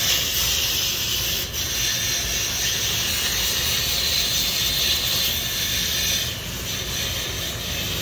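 Water jetting from a garden hose spray nozzle and striking the louvered sheet-metal panel of an air conditioner condenser, a steady hiss of spray as the grille is rinsed clean.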